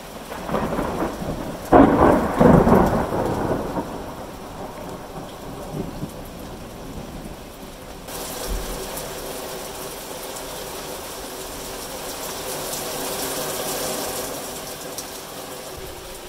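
A rumble of thunder with two loud peaks over the first few seconds, over heavy rain falling steadily. About halfway through, the rain hiss becomes brighter and closer.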